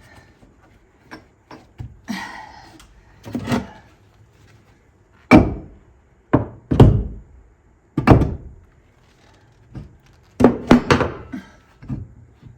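A wooden board being knocked into place against the wall to bring it flush: a series of heavy, dull thunks, with three quick blows close together near the end. Lighter knocks and a brief scrape come first.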